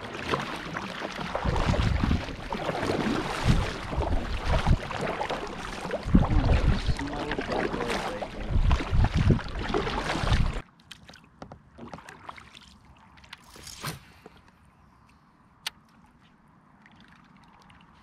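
Kayak paddle strokes splashing through the water, loud and rough with low rumbling swells. About ten seconds in it cuts off suddenly to quiet water with a few small clicks and one sharp click.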